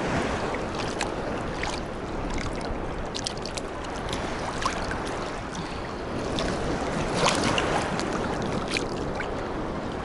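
Small sea waves lapping and sloshing against a camera held at the water's surface, a steady wash of water with many short splashes and droplet ticks close to the microphone.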